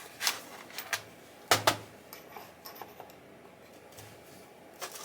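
Small metal screws and parts clicking and clinking as they are handled and sorted through by hand, a handful of separate sharp clicks with the loudest pair about one and a half seconds in.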